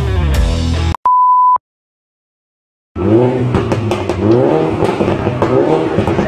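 Music slowing to a halt with its pitch sliding down, then a short pure beep and about a second of silence. From about three seconds in, a car engine revs up and down again and again.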